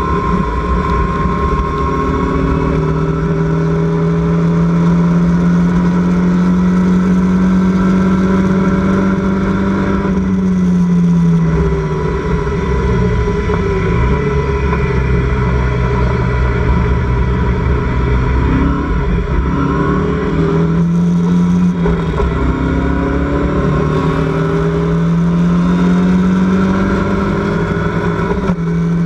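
Locost race car's engine heard from inside its open cockpit at racing speed, the note climbing steadily under acceleration, then falling away about ten seconds in as it lifts and downshifts, and climbing again through the gears twice more, over a steady low rumble.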